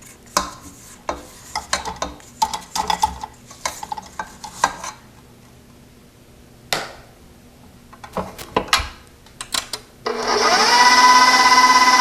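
A spatula scraping down the sides of a mixing bowl in short, irregular strokes. About two seconds before the end, a stand mixer motor starts with a rising whine and runs steadily, whipping egg whites and sugar toward stiff peaks.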